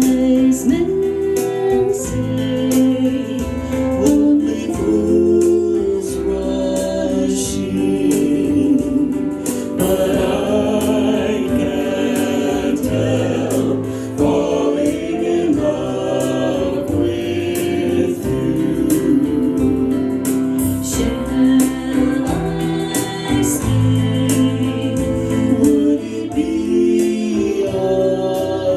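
A band playing with a choir of voices singing, in a gospel style, over a steady beat.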